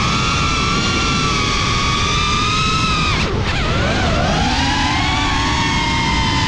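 Geprc Cinelog 35 cinewhoop's brushless motors and propellers whining, a high tone with several overtones. The pitch drops sharply about three seconds in as the throttle comes off, then climbs back over the next second or two.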